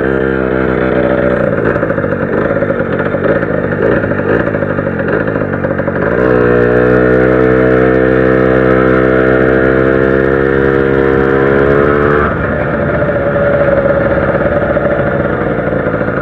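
Zanella 70cc two-stroke moped engine running under way. About six seconds in it pulls to a strong, steady, slightly rising note for roughly six seconds, then drops back as the throttle eases.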